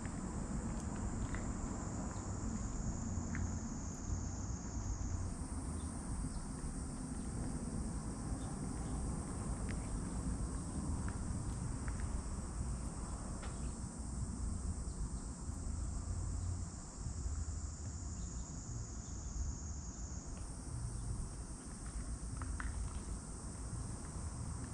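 Steady high-pitched insect trilling that shifts slightly in pitch twice, over a constant low rumble with a few faint ticks.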